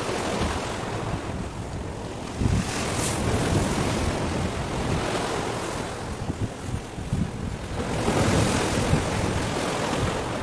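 Wind buffeting the microphone in uneven gusts of low rumble, over a steady wash of sea waves.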